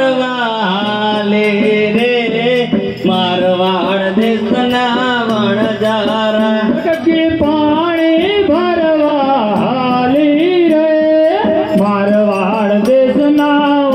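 One voice singing a devotional folk melody into a microphone, with long, bending, ornamented notes, over instrumental accompaniment with light, regular percussion ticks.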